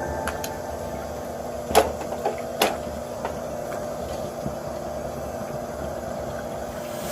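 Handling noises: two sharp clicks or knocks, a little under two seconds in and again about a second later, with a few fainter ticks over a steady low hum.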